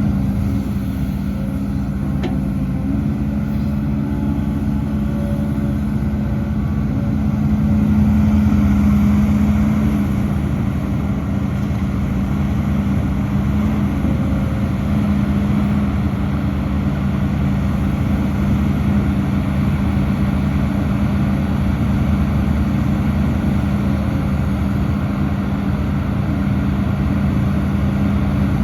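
Heavy diesel engine of earthmoving machinery running steadily, a little louder for a couple of seconds about eight seconds in.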